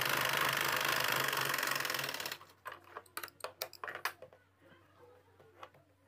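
Singer sewing machine running steadily as it stitches a seam, stopping abruptly about two seconds in, followed by a run of light clicks and rustles.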